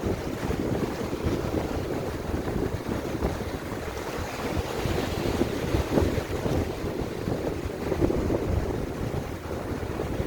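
Strong wind buffeting the microphone in uneven gusts, a low rumbling noise, with sea waves washing on the shore beneath it.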